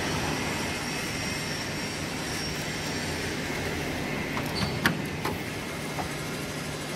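Steady mechanical background noise with a constant low hum, with a few light knocks and clicks near the middle, the sharpest about five seconds in.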